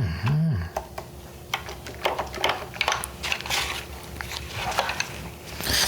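A man's hummed 'mmm' noise rising and falling briefly at the start, then scattered light clicks, taps and rustles of packaging and a plastic keyboard being handled. A loud hissing rustle starts near the end.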